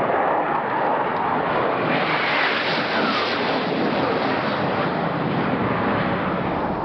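Jet noise from a Russian Su-24 making a low pass close by, steady and loud, with a falling whine a couple of seconds in as it goes past. Wind buffets the microphone.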